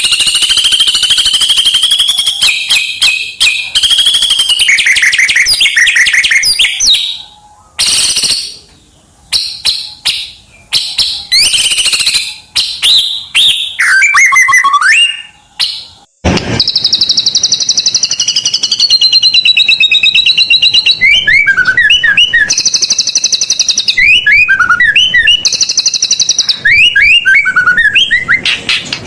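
White-rumped shama (murai batu) singing loudly and continuously: a varied run of fast trills, whistled swoops and buzzy rattling phrases, in full song with many borrowed phrases from other birds. The song breaks off abruptly about sixteen seconds in and picks straight up again.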